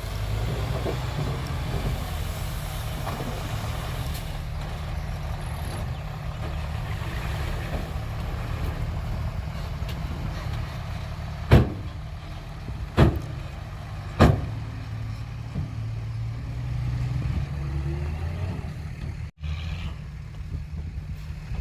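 Heavy diesel engine running steadily with a deep rumble. Three sharp knocks come a little over a second apart near the middle.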